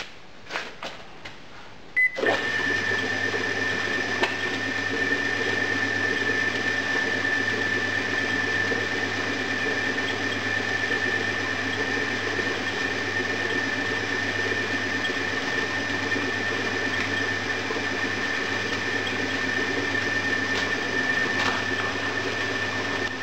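Homemade sand muller switched on through a microwave-oven controller: a few clicks, a short beep about two seconds in, then the motor starts and runs steadily with a constant high whine and low hum. Its roller and plough churn damp foundry green sand.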